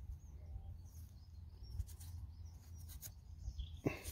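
Fingers rubbing and crackling soil off a small dug-up metal find, over a steady low wind rumble on the microphone. A sharp click sounds near the end, followed by a short bird chirp.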